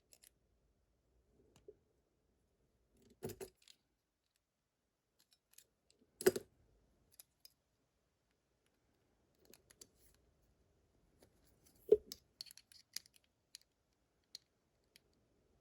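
Small metal tools clicking and scraping against a Vachette VIP lock while working to pry off its stubborn retaining clip, with three louder sharp clacks about 3, 6 and 12 seconds in.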